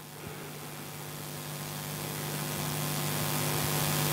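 Steady electrical hum with hiss from the microphone and sound system, slowly growing louder.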